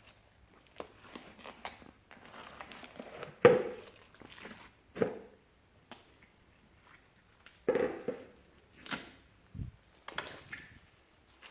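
Slime being mixed and squeezed by hand, giving irregular squelching and crackling sounds. The loudest squelches come about three and a half seconds in and again near eight seconds.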